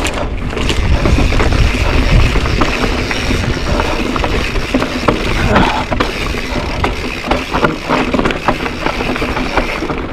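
Mountain bike rolling fast down a dirt singletrack, with heavy wind buffeting the microphone, tyres on dirt, and scattered clicks and rattles from the bike over bumps.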